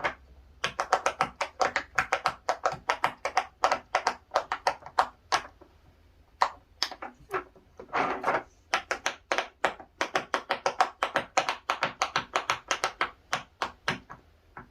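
Silicone pop-it fidget toy bubbles pressed one after another in quick runs, about six pops a second. The run breaks off for a moment around the middle with a few single pops, then picks up again.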